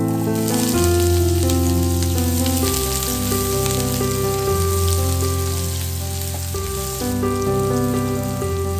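Sliced shallots sizzling as they fry on low heat in oil in a wok, stirred with a silicone spatula; the sizzle starts as they drop into the oil. Background music with held keyboard notes plays throughout.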